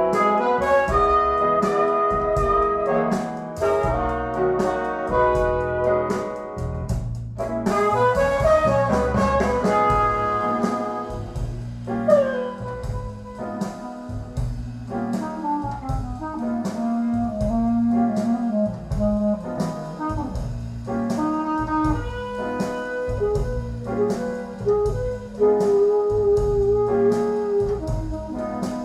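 Jazz music with brass instruments, melodic lines over regular percussion hits, played back through a push-pull tube amplifier and Qualio IQ open-baffle loudspeakers.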